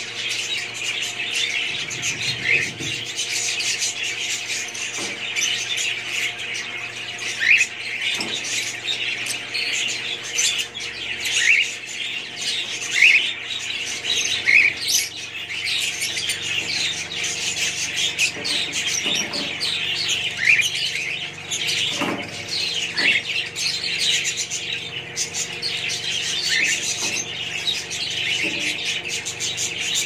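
Budgerigars chattering: a continuous stream of high chirps and warbles, with louder sharp chirps standing out every few seconds.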